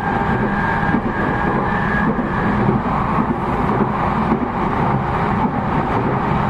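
Steady interior running noise of an E233 series 0 electric multiple unit, with a faint high whine that fades out after about two and a half seconds.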